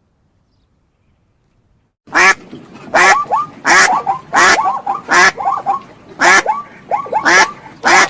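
A duck quacking loudly in a steady series, about nine quacks roughly evenly spaced, starting about two seconds in.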